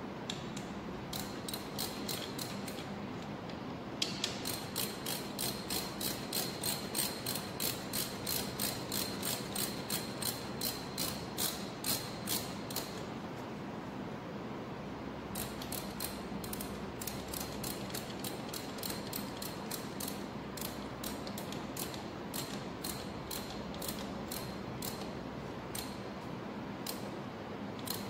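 Hand ratchet wrench clicking as bolts are run in, about three clicks a second. A few clicks at first, then a long steady run, a short pause, and a second run of clicking.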